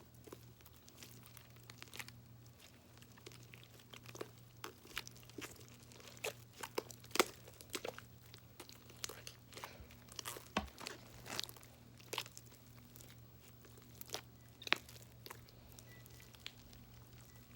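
Slime being mixed and squished by hand in a container: irregular sticky clicks and pops, with a faint steady low hum underneath.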